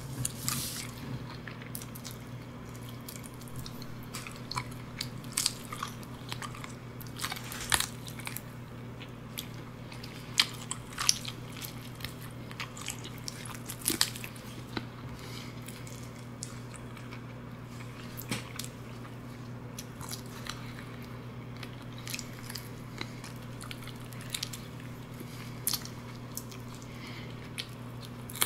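Close-miked eating: crunchy bites and chewing, with frequent short sharp cracks scattered irregularly.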